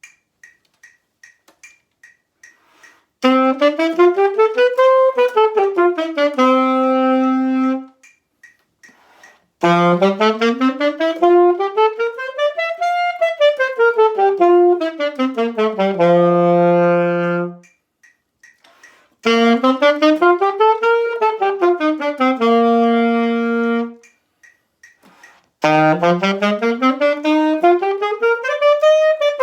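Saxophone playing scales: each one climbs up and back down and ends on a held low note, three full scales and the start of a fourth. A metronome ticks steadily in the pauses between them.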